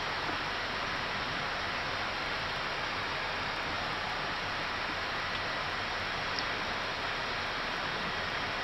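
Steady hiss of air noise on the flight deck of an Airbus A319 in descent, the rush of airflow and air conditioning, with a faint steady high tone underneath.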